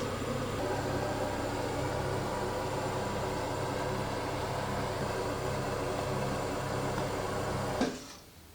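Steady hum and hiss of a kitchen appliance's fan running during cooking, stopping suddenly near the end.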